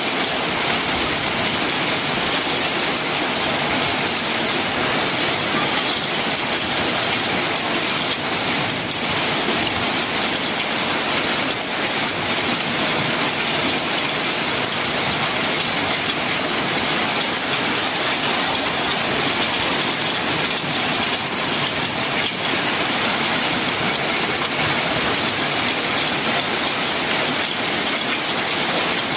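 Very heavy rain falling on a corrugated metal roof: a dense, steady hiss with no letup.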